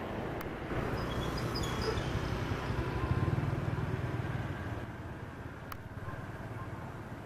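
KAI KT-1 Woongbi trainer's turboprop engine and propeller droning as the aircraft climbs away, peaking about three seconds in and fading from about four and a half seconds in.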